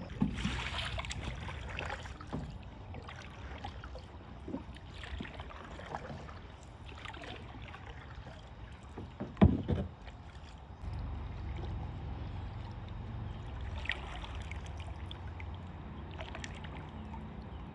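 Kayak paddle strokes in river water: irregular splashes and drips every second or two, with a sharper, louder knock or splash about nine and a half seconds in.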